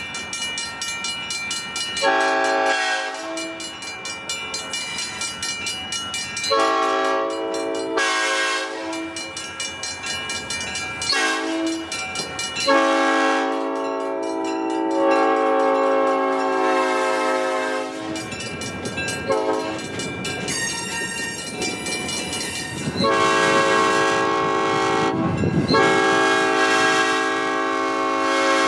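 Air horn of Southern Pacific E9 diesel locomotive No. 6051 sounding a series of blasts, some short and some lasting several seconds, with a rapid regular ticking in the gaps between them.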